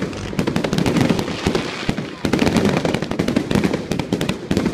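Fireworks going off in rapid sharp cracks and bangs, many a second, with a short lull about two seconds in. A crowd's voices can be heard underneath.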